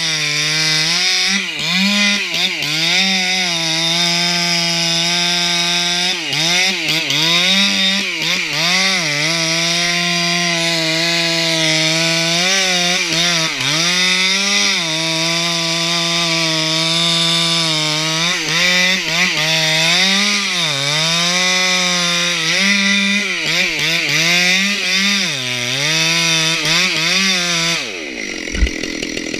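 Stihl 064 two-stroke chainsaw at full throttle, cutting into a redwood trunk, its engine note dipping and recovering every second or two as the chain is pushed into the wood. Near the end the throttle is let off and the saw drops away to a low, quiet running, with one sharp knock just after.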